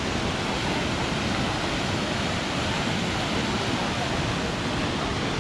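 Steady rushing of fast-flowing creek water, an even unbroken roar like rapids or a waterfall.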